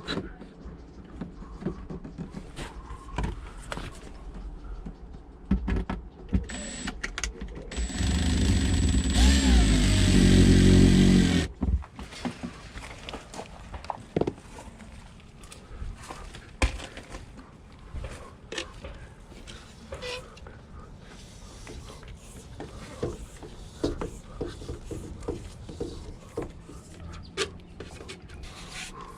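A cordless drill-driver runs for about three and a half seconds, driving in a screw, with a steady high whine. Scattered clicks and knocks of handling come before and after it.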